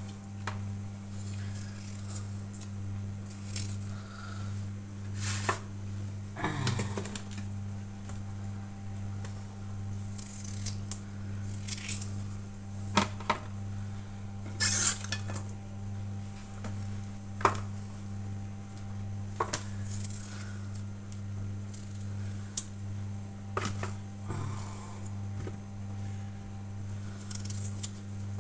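Potato chunks and vegetables set down into a metal roasting tray, giving scattered knocks and clinks at irregular intervals, over a steady low hum.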